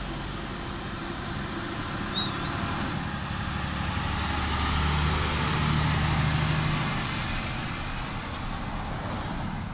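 Volvo VNL semi-truck with a box trailer climbing the grade and passing close by, its diesel engine drone swelling to its loudest about five to six seconds in, then fading as it moves away.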